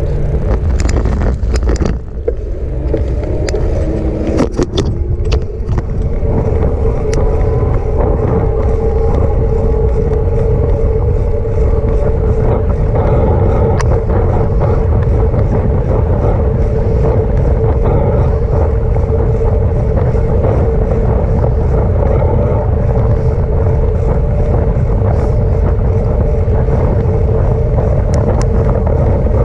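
Riding an electric bicycle: steady wind rumble on the microphone with a constant hum under it, and a few clicks and rattles in the first five seconds.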